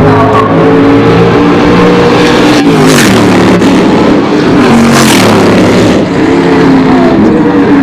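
Several race car engines running hard on the circuit, their pitch rising and falling as they rev through the gears. Two short bursts of noise cut through about three and five seconds in.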